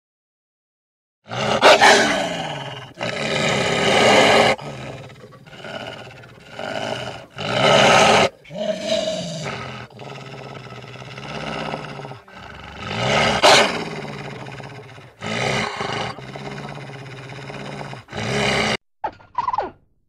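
Wolf growling and snarling: a long series of harsh, rasping growls, some loud, with short breaks between them. Near the end come two brief sharp calls.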